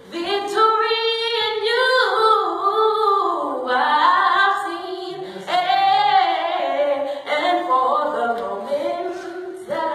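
Women's voices singing a slow gospel song in long held, wavering phrases.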